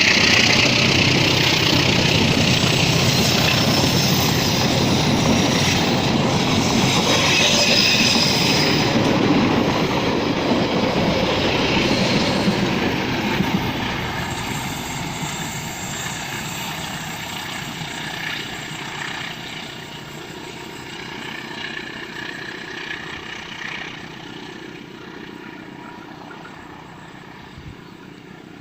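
Passenger train carriages rolling past with the wheels clattering on the rails. The noise holds loud for about the first half, then fades steadily as the train moves away.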